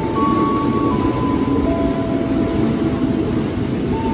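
JR 205 series electric commuter train running past close by, a steady rumble of wheels on the rails. Thin, steady high whining tones shift in pitch in steps over it.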